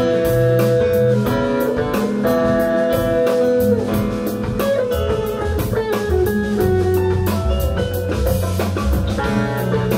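Live band playing: electric guitar over bass guitar and drum kit, with a steady cymbal beat.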